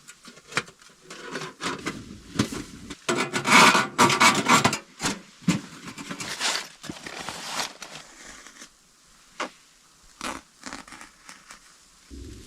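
Irregular rustling, scraping and clicking of things being handled at close range, loudest and densest about three to five seconds in, then sparser clicks.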